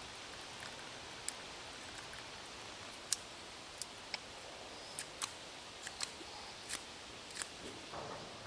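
Metal spoon clinking against a ceramic mug while coffee is stirred: about ten light, sharp clinks at an irregular pace over a steady hiss.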